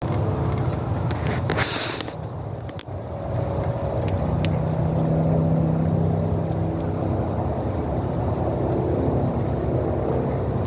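A steady low mechanical hum with a few held tones, and a brief rustling noise about a second and a half in.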